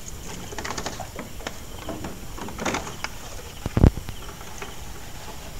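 Scattered clicking, rattling and knocking in a small fishing boat, with one sharp knock a little before four seconds in.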